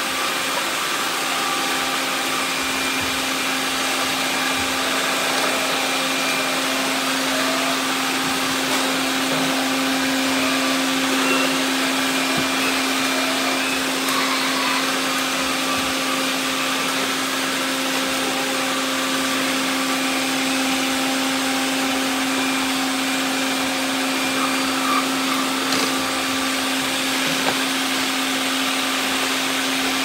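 Many robot vacuums running at once: a steady whirring drone with a constant low hum, and a few faint knocks as the robots bump about.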